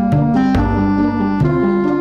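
Instrumental background music: sustained pitched notes over a bass line that steps to a new note every half second or so, with occasional sharp accents.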